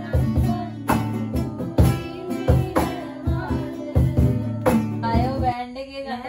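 Acoustic guitar strummed with voices singing along and a rhythmic hand-clapped beat. The music stops about five and a half seconds in, giving way to talk and laughter.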